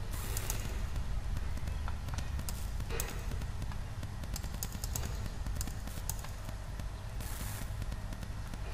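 Scattered computer mouse clicks over a steady low electrical hum from the recording microphone, with a short hiss about seven seconds in.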